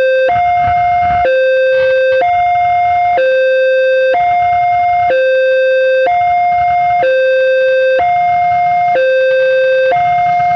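Electronic two-tone level-crossing warning alarm, steadily alternating between a low and a high tone about once a second, signalling that a train is approaching. A faint rumble runs underneath.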